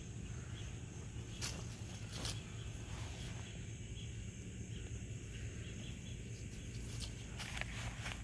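Outdoor yard ambience: a steady low rumble and a faint steady high-pitched hum, with a few short soft rustles or clicks in the grass, twice early and a cluster near the end.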